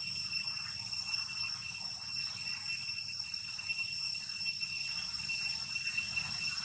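Steady, high-pitched drone of insects in the forest, holding an even pitch throughout, over a low rumble.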